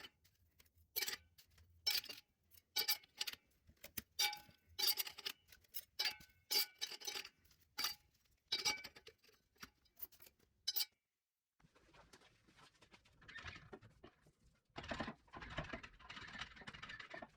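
Metal parts of a 4L60E transmission clinking and ringing as they are handled and set together, a dozen or so separate clinks. About eleven seconds in they give way, after a brief break, to a softer continuous scraping and rustling of parts being worked.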